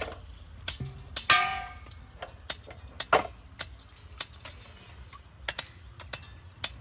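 Irregular clicks and knocks of objects being handled, with one ringing metallic clang a little over a second in.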